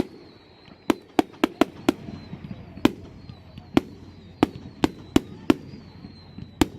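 Fireworks going off in a rapid, irregular string of sharp bangs, about a dozen in a few seconds, each with a short echoing tail.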